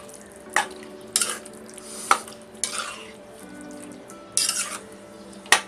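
A steel spoon stirring a watery fish curry in an aluminium pan, with short scrapes and a few sharp clinks of the spoon against the pan. Faint background music underneath.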